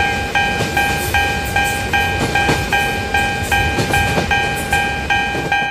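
Japanese railroad crossing warning bell ringing in a steady electronic clang, about three strokes a second, over the rumble and wheel clatter of a passing train.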